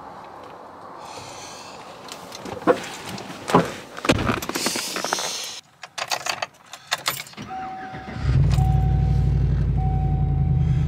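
Keys rattling and the clunks of getting into a Chevrolet Silverado pickup, then the truck's engine starts about eight seconds in and idles steadily. A dashboard warning chime beeps in an even repeating pattern, starting just before the engine catches.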